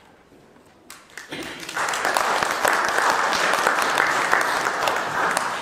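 Audience applauding. It starts about a second in, quickly swells into steady clapping and eases off near the end.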